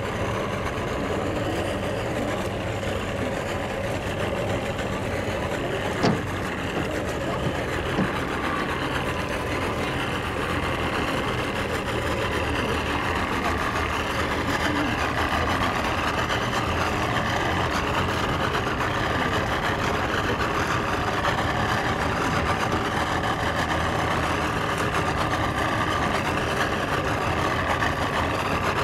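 Motorboat engine running steadily at idle, with a sharp knock about six seconds in.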